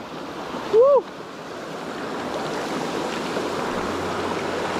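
Rushing water of a small stream flowing over rocks, a steady hiss that swells slightly after the first second. About a second in, a short hum rises and falls in pitch.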